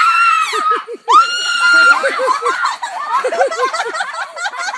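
A girl screams twice, two long high-pitched screams, while a rooster chases her; then rapid laughter follows.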